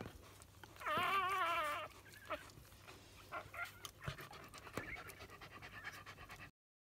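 Newborn cockapoo puppies squealing. About a second in comes one loud, wavering, high cry lasting nearly a second, followed by short, fainter squeaks. The sound cuts off suddenly near the end.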